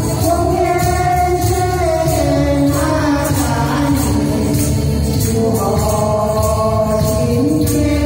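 A Hakka song sung by an elderly woman into a microphone, joined by a second voice, over a backing track. A tambourine is shaken on the beat about twice a second.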